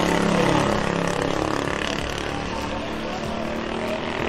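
A car engine running, with a steady stack of low engine tones.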